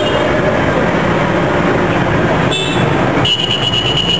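Loud, steady street traffic noise. A high-pitched squeal joins about three seconds in.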